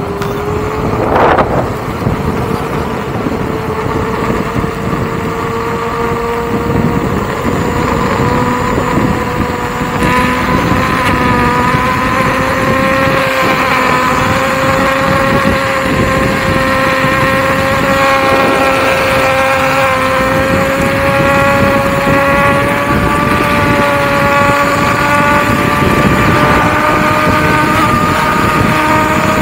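Begode EX30 electric unicycle's hub motor whining at speed, a steady pitched whine that creeps slowly upward in pitch, over wind and road noise. A short gust of wind noise about a second in.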